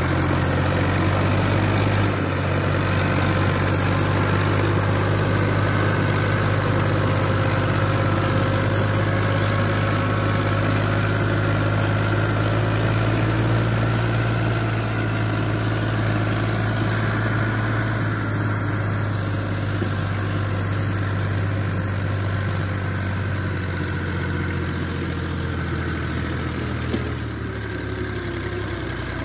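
Fiat 480 tractor's diesel engine running steadily under load as it hauls a heavily loaded sugarcane trailer, slowly fading in the second half as it pulls away.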